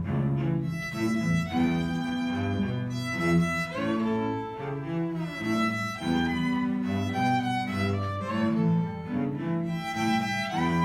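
A small instrumental ensemble playing music: held melody notes over changing bass notes.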